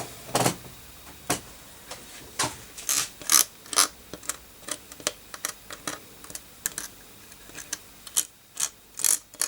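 Irregular light clicks and taps of small tools and parts being handled at the solder pot, a few at a time and unevenly spaced.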